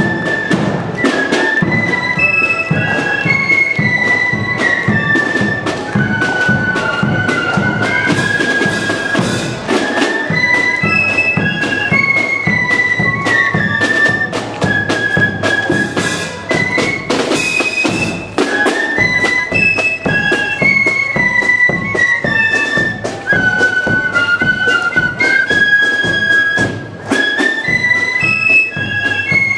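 Marching flute band playing a march: flutes carry a high melody in unison, repeating its phrase, over snare drums beating steady march time.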